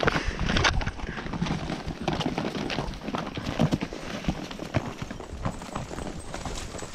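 Mule hooves clattering on a rocky trail as a string of riding and pack mules walks, irregular knocks of steps on stone, loudest in the first second.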